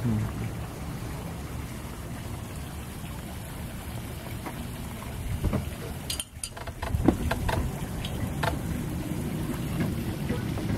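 Steady low rumble of outdoor wind on the microphone, with a handful of light clicks and taps from about six to eight and a half seconds in.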